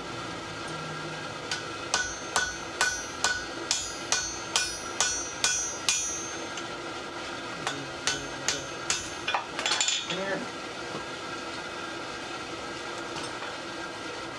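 Blacksmith's hammer striking hot steel on an anvil while curving it, hitting it in a different spot each blow. There is a steady run of ringing blows about two a second, a short pause, then four or five more, a brief clatter about ten seconds in, and after that only a steady background hum.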